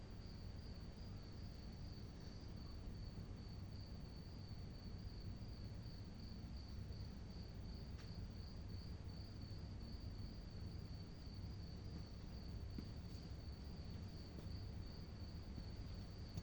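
A cricket chirping steadily at night: one high, thin note pulsing evenly, about three pulses a second, over a faint low background hum.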